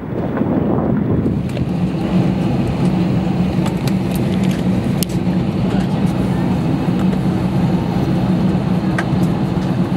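Steady low drone with a constant hum inside an Airbus A320's cabin while the aircraft stands on the apron.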